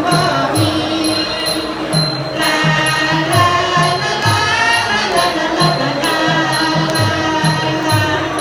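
Lao traditional dance music with a melody over a steady beat of about two drum strokes a second and a small cymbal ticking in time.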